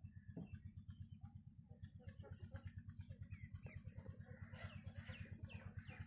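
Faint bird chirps and short gliding calls over a low, even throb at about nine beats a second.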